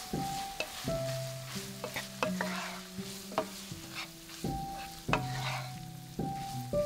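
Wooden spatula stirring and scraping ground beef frying in a nonstick pan: sizzling, with scattered clacks of the spatula against the pan. Background music of held notes changing pitch in steps plays underneath.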